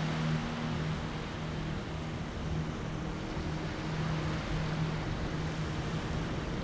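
Steady rushing of sea and wind, with a low hum that comes and goes in short pulses of about half a second.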